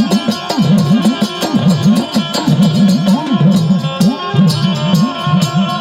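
Instrumental passage of Gujarati folk devotional music: quick hand-drum strokes with a bass drum tone swooping up and down in pitch, under steady sustained melody notes.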